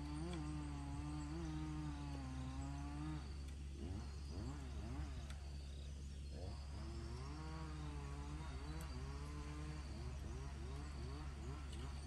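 A flying insect buzzing close by, its pitch wavering and swooping up and down as it moves around. A steady low rumble runs underneath.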